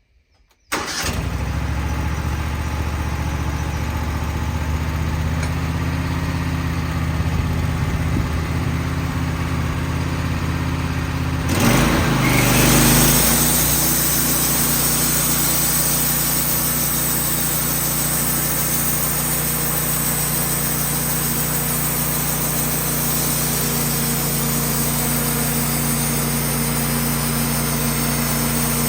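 Wood-Mizer sawmill engine starting up abruptly and running steadily at a lower speed, then speeding up about 12 seconds in and holding a higher, steady speed with more hiss.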